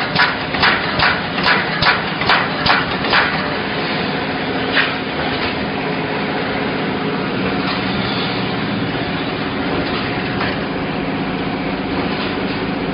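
Wire mesh welding machine running: a rhythmic knocking about twice a second that stops about three seconds in, over a steady mechanical hum that carries on, with one more knock near five seconds.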